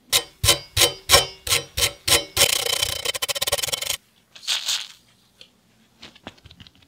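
An aerosol spray can shaken hard, its mixing ball rattling about eight times, then sprayed through its red extension straw in a steady hiss of about a second and a half, followed by a second, shorter burst. The spray lays white cleaning foam onto the part.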